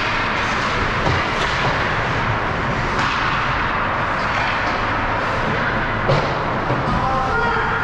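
Ice hockey game in play: steady rink noise with scattered sharp clacks of sticks and puck, and a louder thud about six seconds in.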